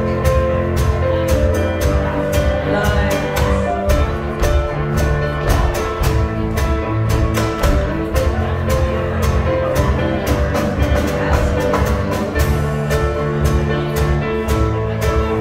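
Live band playing a contra dance tune with a steady, even beat.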